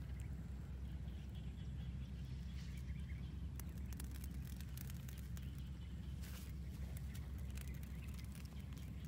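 Steady low wind rumble on the microphone outdoors, with a few scattered light clicks.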